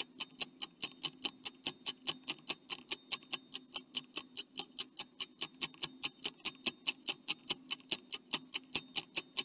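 Clock-ticking sound effect of a quiz countdown timer: rapid, even, high ticks, about four to five a second, over a faint low hum, marking the time left to answer.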